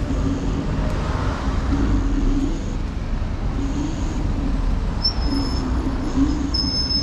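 Dualtron Thunder electric scooter ridden along paving: a steady low rumble of wind and tyres, with a hum from the hub motors that wavers in pitch. From about five seconds in a thin, high, steady whine joins it.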